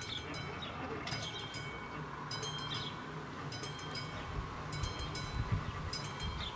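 Level-crossing warning bell striking about once every 1.2 seconds, each strike ringing on briefly, while the crossing's barrier booms are driven down. Under it runs a low steady hum that grows louder in the second half.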